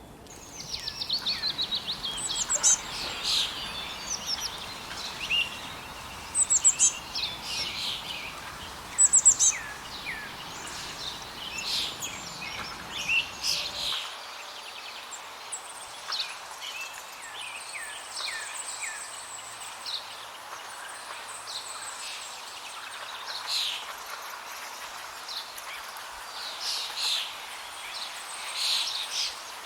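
House sparrows chirping: many short cheep and chirrup notes, some in quick runs, from several birds. A low background noise under the calls drops out suddenly about halfway through.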